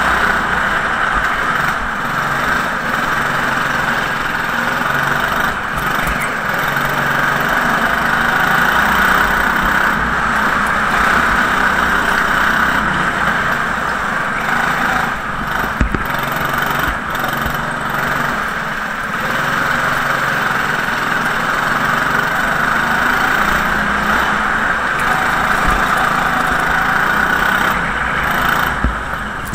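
Go-kart's small petrol engine running continuously, heard from on board the kart, its pitch shifting a little as the throttle changes.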